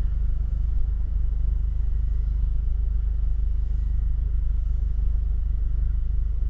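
Steady low rumble inside a parked car in strong gusty wind.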